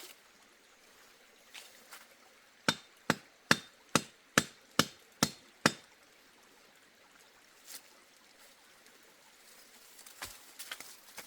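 Hammer blows: a quick, even run of eight sharp strikes, about two and a half a second, with a few lighter knocks near the end.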